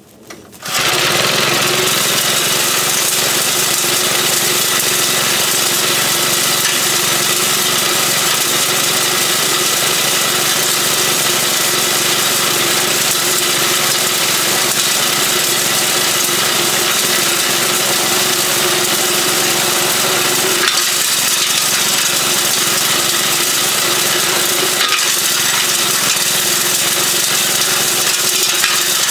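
Small 3.5-horsepower engine, running on propane, starting suddenly under a second in and then running loudly and steadily as it drives a homemade beer-bottle crusher.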